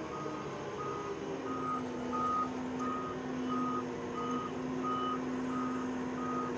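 Backup alarm on a Wirtgen W 210Fi cold milling machine beeping steadily, about one and a half single-tone beeps a second, as the machine reverses. Its diesel engine runs underneath with a steady hum.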